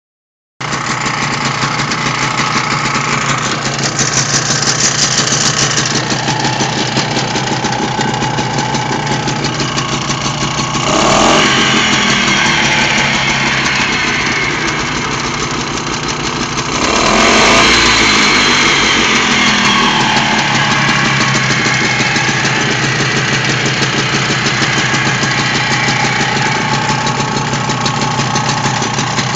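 BRIBAN 5 hp two-stroke outboard motor running steadily, revved up and let back down twice, the second rev-up about six seconds after the first.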